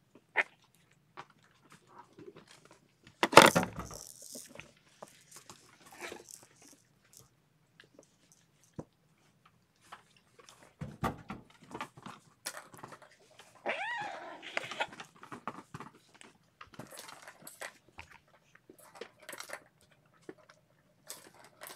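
Kittens scuffling and play-fighting: scattered small clicks and rustles, a loud knock about three seconds in, and a short mew about fourteen seconds in.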